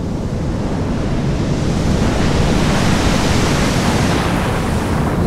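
Sea waves breaking into surf, a steady rushing wash that swells louder about two seconds in.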